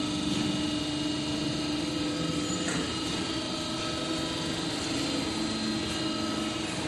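Industrial press for balsa wood running: a steady mechanical hum with several steady tones, and a single light click a little before the middle.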